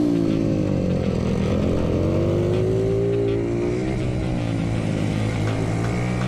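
Pit bike engines on track, the revs falling off into a corner and rising again on the throttle, twice.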